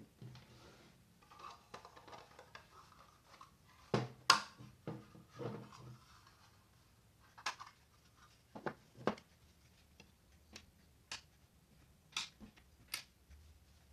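Hands handling a 3D-printed plastic speaker box and small circuit boards on a wooden workbench: soft rustling, two louder knocks about four seconds in, then a string of sharp light clicks and taps.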